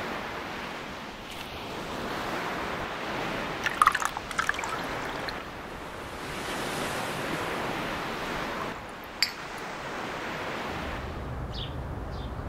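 Sea waves washing over shoreline rocks, swelling and falling back. A few sharp clinks come about four seconds in, and a single click comes a little after nine seconds.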